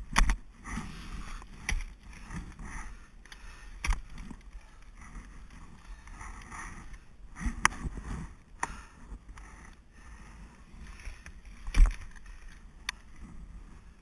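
Ice axe picks striking into waterfall ice: about seven sharp strikes at irregular intervals, with softer scraping and rustling between them.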